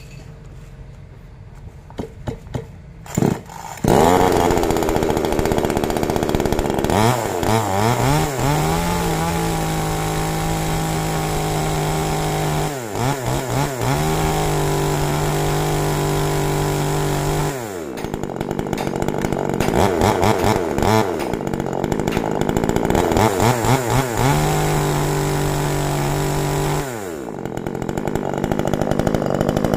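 New CX2500 top-handle two-stroke chainsaw catching about four seconds in. It is revved up to full speed and held there twice, drops back, is blipped a few times, revved again, then falls back to idle near the end.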